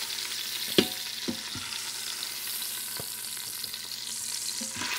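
Beef short ribs sizzling in hot oil in an Instant Pot's stainless steel inner pot on sauté, with tongs clacking against the pot a few times as the seared pieces are lifted out; the sharpest clack comes just under a second in.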